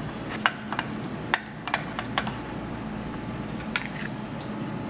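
Metal kitchen tongs clicking against a baking pan while lifting a baked fish fillet: about six sharp clicks spread over the first four seconds, over a steady low hum.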